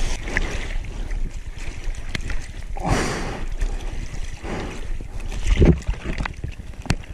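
Sea water sloshing and splashing close to the microphone, with a few louder washes and some wind on the microphone.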